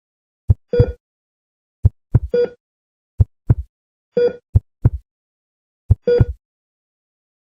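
Heartbeat sound effect: pairs of low lub-dub thumps about every 1.3 to 1.4 seconds, five beats in all. A short electronic heart-monitor beep sounds four times, roughly every one and a half to two seconds, landing on the beats.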